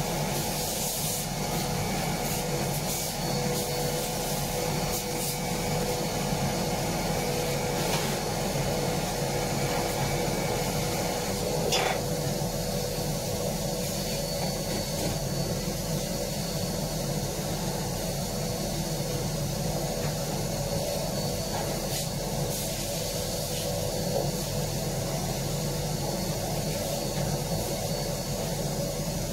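Electric sander working steadily on the bilge, a continuous rough rubbing over a steady motor hum, as the surface is prepared for topcoat.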